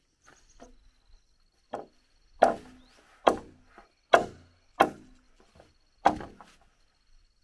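Green bamboo pole being chopped with a blade: about six sharp strokes roughly a second apart, each ringing briefly.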